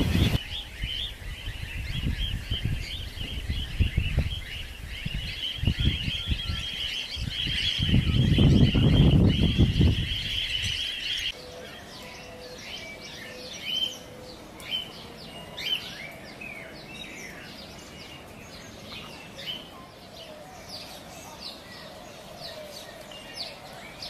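A large flock of wild cockatiels calling together in a dense, continuous chatter over a low rumble. About eleven seconds in this gives way abruptly to quieter, separate cockatiel chirps and calls.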